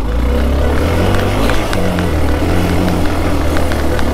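Motorcycle engine running steadily, with a few sharp clicks over it.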